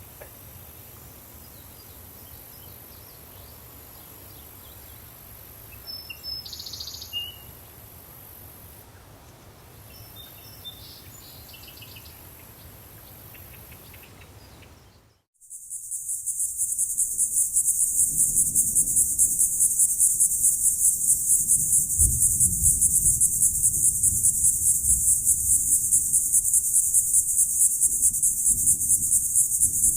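Quiet forest background with a few short bird calls, then about halfway through a brief dropout and a switch to a loud, dense chorus of crickets chirping in a rapid, steady pulse.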